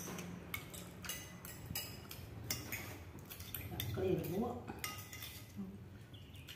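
Metal spoons clinking against soup bowls while eating, a scatter of light clinks.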